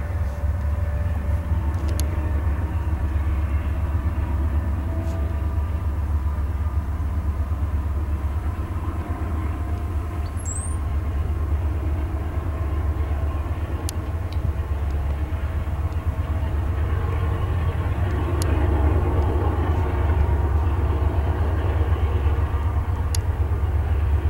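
Distant freight train hauled by diesel locomotives rolling slowly past, heard as a steady low rumble with a few faint clicks.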